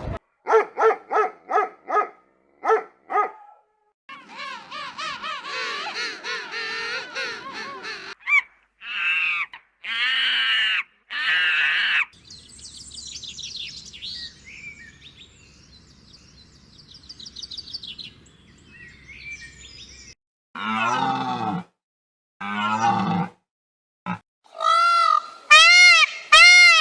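A string of different animal and bird calls, one short clip after another with abrupt breaks between them. Near the end a goose honks over and over.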